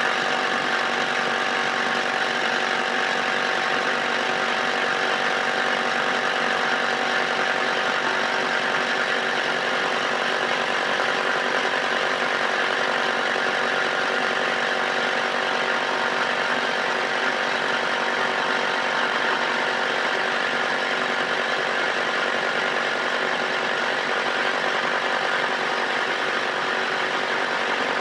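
A motor running at a constant speed: an even mechanical hum and whine made of several steady tones over a rushing noise, unchanging throughout.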